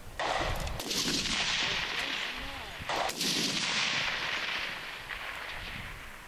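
Two high-powered rifle shots on a long-range firing line, one just after the start and another about three seconds later, each followed by a long echo rolling away over the range.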